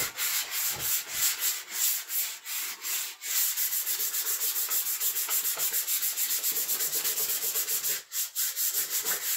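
220-grit wet-and-dry sandpaper rubbed by hand over a painted plastic car trim piece, scuffing the old paint to ready it for primer. The strokes are slower and uneven at first, then settle into quick, regular back-and-forth strokes several times a second, with a brief pause about eight seconds in.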